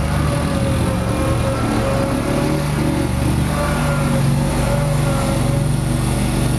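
Small quad ATV engine running under throttle as it is ridden, with a steady, even sound throughout.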